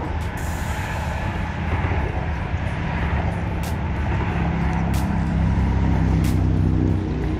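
Steady low rumble of motor traffic, growing louder for a couple of seconds near the end and then dropping back, with faint sharp ticks every second or so.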